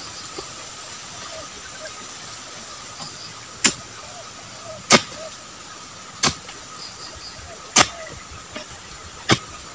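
A hand tool striking at the base of an oil palm five times, sharp chopping hits about one every one and a half seconds, starting a few seconds in, over a steady hiss.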